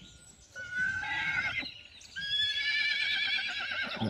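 Horse whinnying twice: a short call about half a second in, then a longer one of about two seconds with a wavering pitch.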